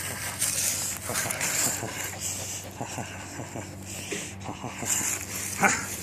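Belgian Malinois puppy whimpering and giving short yips while it tugs on a rag toy, with a louder, sharper yip about five and a half seconds in.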